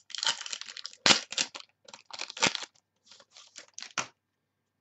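A football trading-card pack wrapper crinkling and tearing as it is ripped open by hand: a run of crackly rustles that stops about four seconds in.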